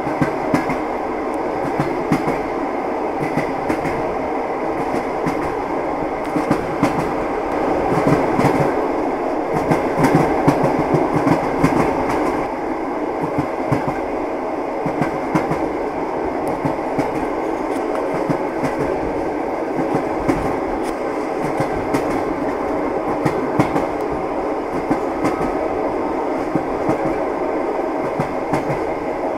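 Train running steadily on rails: a continuous rolling noise with scattered clicks of the wheels over the track, growing a little louder about a third of the way in.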